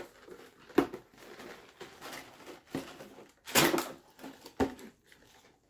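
Clear plastic blister pack of steel slingshot shot being handled and pried at: irregular crinkling with a few sharp plastic clicks and snaps, loudest in a crackling stretch a little past the middle.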